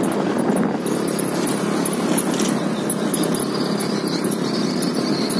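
Motorcycle engine running at a steady pace while riding, mixed with wind and road noise.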